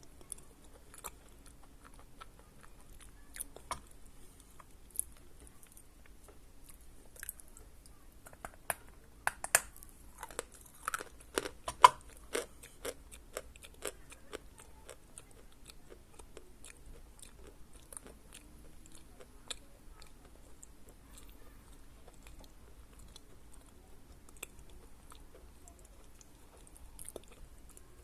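Close-up biting and crunching of a dense lump of Khrapovsky edible chalk. A quick run of sharp crunches falls in the middle, with scattered crackles before and after.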